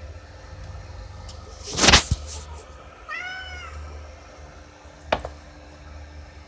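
A domestic cat meows once, about three seconds in: a single call that rises and then falls in pitch. About a second before it comes a loud, sharp, noisy burst, the loudest sound here, and a shorter sharp burst follows about two seconds after the meow.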